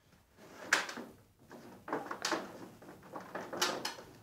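Irregular knocks and scrapes of things being handled, about six in all, with the louder ones near the start, in the middle and near the end.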